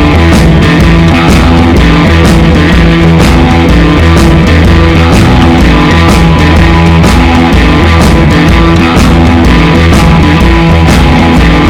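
Loud rock background music with electric guitar and a steady drum beat.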